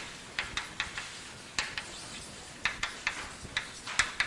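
Chalk writing on a blackboard: an irregular series of short, sharp taps and strokes, the loudest near the end.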